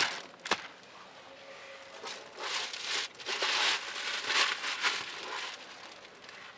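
Clear plastic protective wrap on a car seat crinkling and rustling as a hand grabs and handles it, loudest from about two to five seconds in. Two light clicks come near the start.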